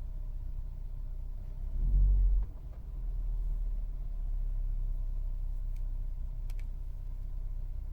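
A 1.6 THP four-cylinder turbo petrol engine running with a steady low rumble. A brief louder surge about two seconds in could be a short blip of the throttle.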